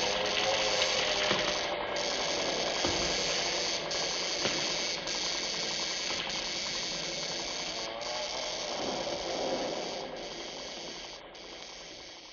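Sound-effect crackling and buzzing of a mad scientist's electrical laboratory apparatus, a dense rattling crackle with a wavering tone beneath it, fading out near the end.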